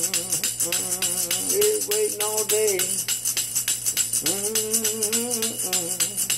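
Tambourine shaken rapidly and evenly, its metal jingles rattling continuously. A low wordless voice sounds along with it twice, around two seconds in and again near five seconds.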